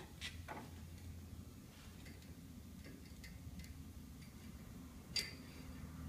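Scattered light metallic clicks and taps from hand tools working the pinch-roller spacing adjusters of a Glass Master duct-board grooving machine, with one sharper click that rings briefly about five seconds in. A low steady hum lies underneath.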